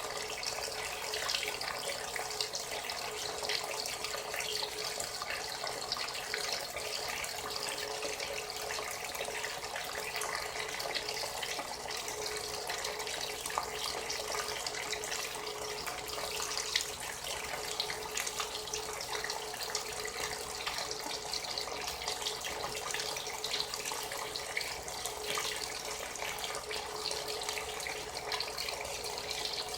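Frigidaire Gallery Series top-loading washing machine filling, with water pouring steadily into the tub.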